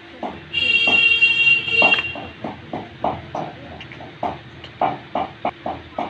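Alexandrine parakeet giving one long, loud, shrill call of about a second and a half, then a string of short, sharp notes at about three or four a second.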